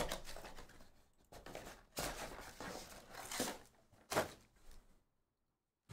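Cardboard trading-card boxes being opened by hand and the foil-wrapped card packs inside handled: a string of short rustles, crinkles and tears.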